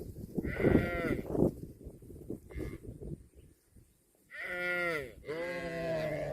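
Cattle mooing: one call near the start, then two more back to back partway through, the last one long and drawn out.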